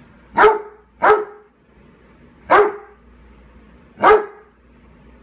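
A Bassador (basset hound–Labrador cross) barking four times at a gnome figurine: two barks close together, then two more about a second and a half apart.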